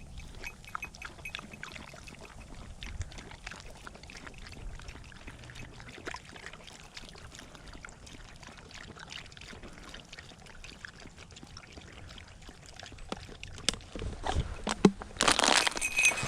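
Dense crackling rustle of dry field cover being pushed through. In the last couple of seconds, heavy wind gusts buffet the microphone much louder.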